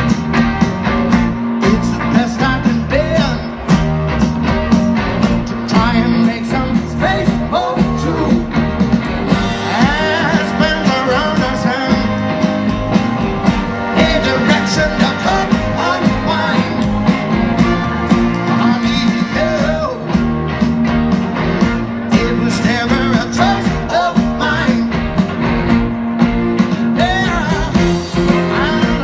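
Live rock band playing through a large outdoor PA, with a singer, guitars and a steady drum beat, heard from within the crowd.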